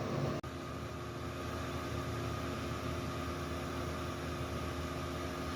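Steady mechanical hum with an even hiss and a few fixed humming tones, like ventilation or machinery running. It cuts out for an instant about half a second in.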